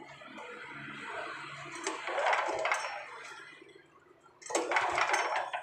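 Two rattling pulls on the recoil starter of a Honda GX390 engine, about two seconds apart, the second louder. The engine does not catch, fitting its reported hard starting.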